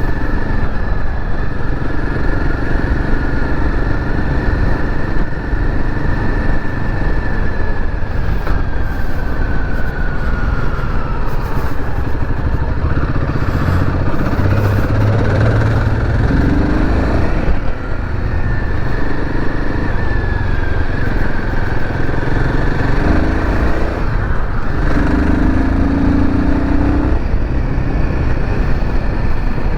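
Royal Enfield Himalayan 450's single-cylinder engine running on the move under a steady rush of road noise. The engine note rises in short pulls several times in the second half as the bike accelerates.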